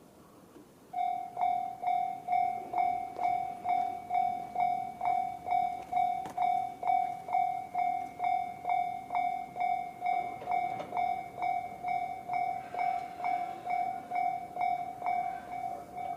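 Japanese railway level-crossing alarm ringing the JR standard electronic bell: one ringing tone struck about twice a second, starting about a second in. It is the crossing's warning that a train is approaching.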